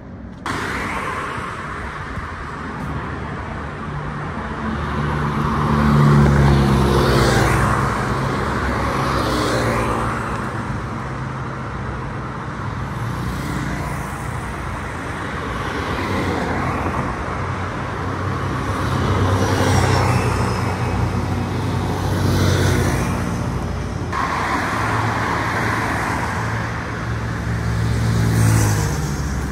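Road traffic on a wide city road: cars and motorcycles pass one after another over a steady traffic hum, with several distinct swells as vehicles go by.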